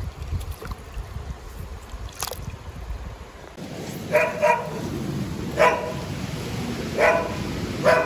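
Water splashing and the rustle of a landing net being handled in a creek. From about four seconds in, a dog barks five times in short, sharp barks, the first two close together and the rest about a second and a half apart.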